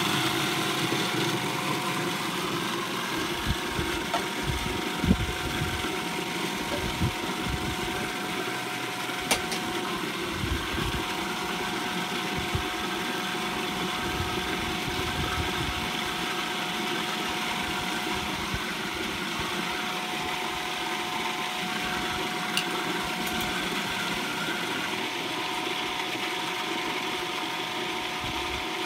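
Electric food processor running steadily with a constant motor whine, chopping a thick paste of wild garlic, almonds and olive oil into pesto.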